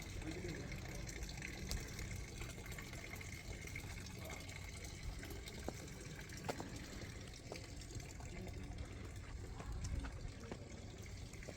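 Steady rush of running water, with a few faint scattered clicks.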